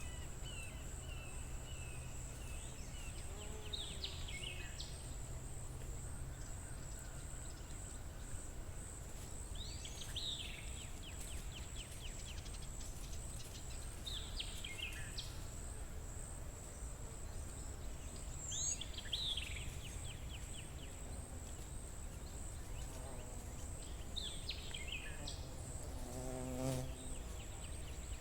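Outdoor woodland ambience: a songbird repeats a short song about every five seconds, a quick falling phrase that ends in a buzzy trill, over a steady high insect trill. Near the end a fly or bee buzzes close by.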